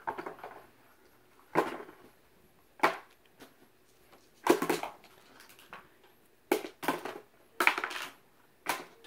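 LOL Surprise toy pieces and plastic balls dropped one after another into a hard plastic tub, a short clatter every second or so.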